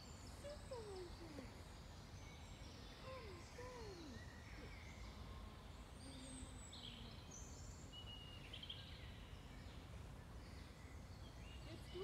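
Faint songbirds singing in woodland, with short high chirps and trills throughout over a steady low rumble. A few lower calls sweep downward in pitch in the first four seconds.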